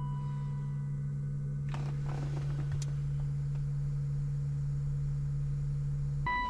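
Steady low hum, typical of the 12-volt ECU cooling fan, cutting off suddenly near the end as a short electronic beep sounds. Some brief rustling about two seconds in.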